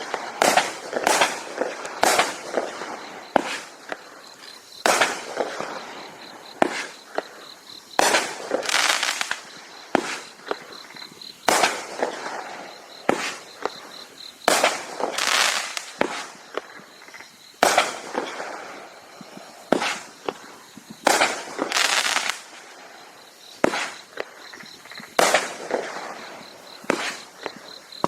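Consumer multi-shot fireworks cake firing shot after shot: sharp bangs in quick, uneven succession, several of them trailing into a longer crackling spread.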